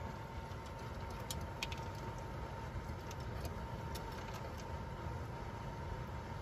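A dog eating dry kibble from a metal bowl, with scattered faint crunches and clicks, over a steady low hum with a faint high whine.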